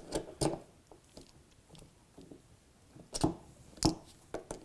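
A few sharp clicks and knocks from a hex bolt, a hex key and an inline-skate wheel being handled while a wheel is refitted to a rolling camera case. The loudest knocks come a little after three seconds and near four seconds in.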